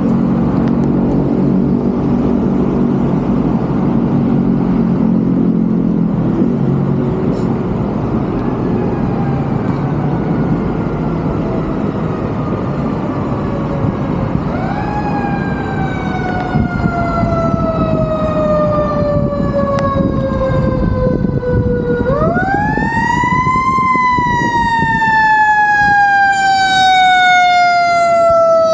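Fire engine siren wailing as the truck comes up. It first sounds as a slow falling tone about a quarter of the way in, then is wound up quickly and left to fall slowly twice more, about halfway and about three-quarters through, the last time climbing highest and loudest. Street traffic runs steadily underneath.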